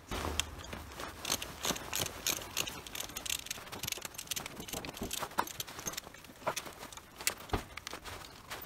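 A hand tool working the bolts on a motorcycle engine's stator side cover: a string of irregular sharp metal clicks and clinks, with one louder knock near the end.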